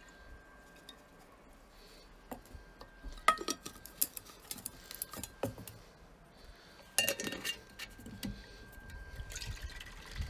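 Glass jar and kitchenware clinking as they are handled: scattered sharp clinks, the loudest about three seconds in and again about seven seconds in, some with a short glassy ring.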